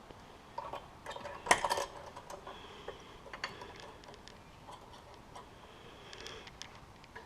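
Hand tools and metal parts being handled during an exhaust install: scattered light clicks and clinks, with a louder metallic clatter about a second and a half in.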